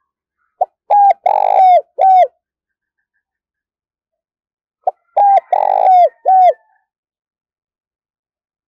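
Spotted dove cooing: two phrases about four seconds apart, each a quick run of four low coos, the third longer and rougher than the others.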